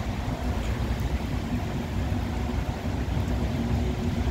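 Steady low rumble of an Irish Rail InterCity Railcar diesel multiple unit idling at the platform, with a faint, even engine hum over it.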